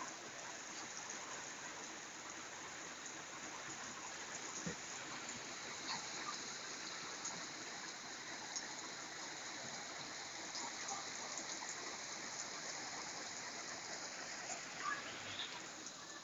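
Steady heavy rain, an even hiss with scattered faint drop ticks.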